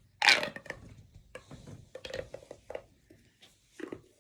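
Handling noise: a loud rustle and knock about a quarter second in, followed by scattered light taps and clicks of small hard objects being moved.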